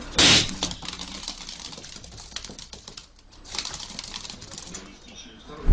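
A balloon bursting with a sharp pop about a quarter second in, followed by faint scattered ticks and rustling as a small hamster scurries off. A loud low thump right at the end.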